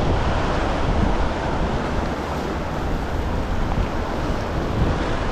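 Wind buffeting the microphone over the steady wash of breaking surf on the beach.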